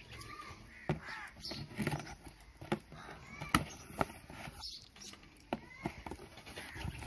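Cardboard shipping box being opened by hand: packing tape pulled from the seam and the flaps handled, giving a string of sharp clicks, taps and scrapes. Crows cawing in the background.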